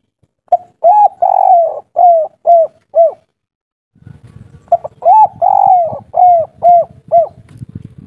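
Spotted dove cooing its 'kuk 3' song twice. Each phrase is a run of about six arched coos: two short, one long, then three short 'kuk' notes to close. A low rumbling noise comes in under the second phrase.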